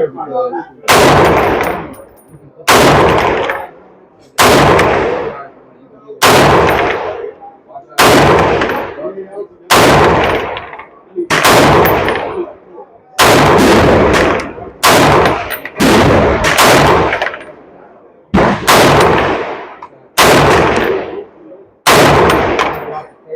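A 12.5-inch POF .308 AR pistol firing slow, single semi-automatic shots, about fourteen of them, mostly one every second and a half to two seconds, with a few quicker shots about two-thirds of the way through. Each loud crack trails off in a long echo.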